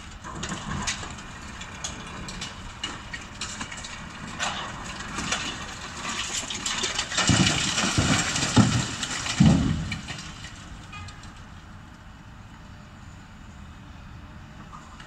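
Long-reach demolition excavator breaking up the top of a concrete building: a stream of cracking and crunching as concrete and facade panels give way, over the machine's engine running. Several heavy thumps of falling debris come in the middle, after which the sound settles to a quieter rumble.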